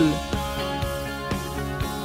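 Background music: a light plucked-guitar tune with soft drums.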